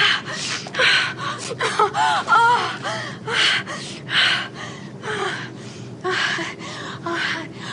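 Rapid, heavy gasping breaths, about two a second, with a few short moans rising and falling in pitch: shuddering after a sneeze, played as orgasmic.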